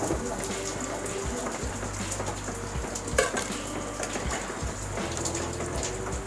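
Hot oil sizzling and crackling as potato vadas (batter-coated potato balls) deep-fry in a kadai, with one sharp knock about three seconds in.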